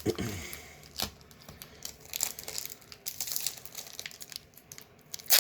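Plastic-foil booster pack wrapper crinkling and tearing as it is handled and opened, in scattered sharp crackles with the loudest near the start and near the end.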